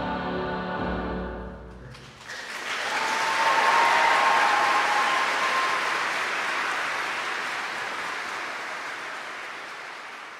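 The music's final held chord fades out, and about two seconds in an audience breaks into applause that swells quickly and then slowly dies away.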